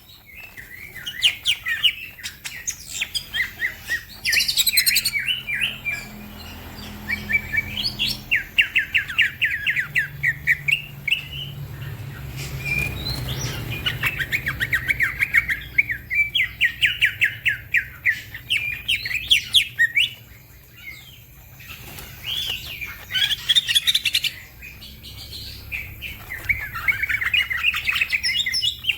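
Green leafbird (cucak ijo) singing in fast chattering phrases of rapidly repeated notes, each phrase a few seconds long with short pauses between.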